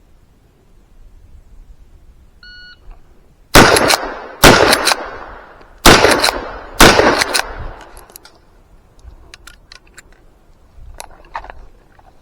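A shot-timer start beep, then four loud shots from a Rossi R92 lever-action carbine, about a second apart, each echoing. Then a run of small clicks and rattles as rounds are pushed into the magazine tube during a fumbled reload.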